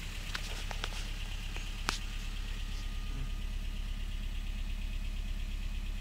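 Honda Fit hybrid's four-cylinder engine idling with a misfire on cylinder 2 (code P0302), running steadily with an uneven pulse. A few light clicks come in the first two seconds.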